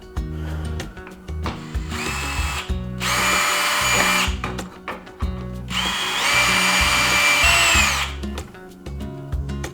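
Power drill running in two main bursts of motor whine, each winding down in pitch as it stops, over background music.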